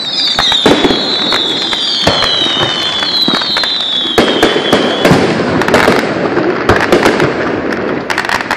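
Fireworks display: a dense string of shell bangs and crackling bursts. Several high whistles, overlapping and gliding slowly down in pitch, run through the first five seconds.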